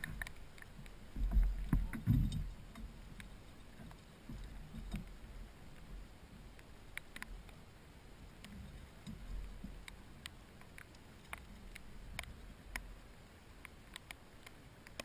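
Light rain ticking on a plastic kayak and the camera housing, scattered single ticks over a steady hiss. A few low bumps and knocks from the angler shifting in the kayak about a second and two seconds in are the loudest sounds.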